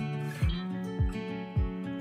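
Background music: a guitar-led track with strummed chords over a steady kick-drum beat, about two beats a second.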